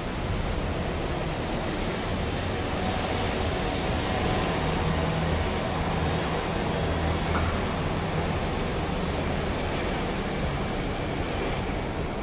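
TRA E1000 push-pull Tze-Chiang express train approaching, a low rumble that grows a little midway, over a steady hiss.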